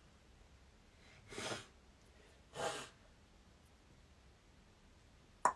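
Two short, noisy breaths a little over a second apart, then a single sharp click near the end.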